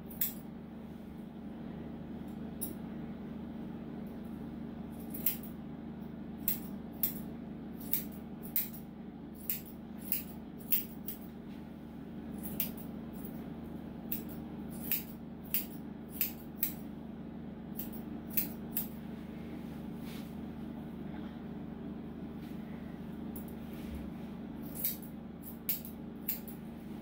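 Grooming scissors snipping the hair on a Yorkshire terrier's face: short, sharp snips in irregular clusters, with pauses of a few seconds between them, over a steady low background hum.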